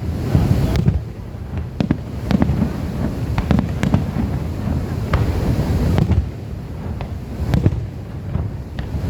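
Fireworks display: repeated sharp bangs and crackling pops, one every second or so, over a continuous low rumble.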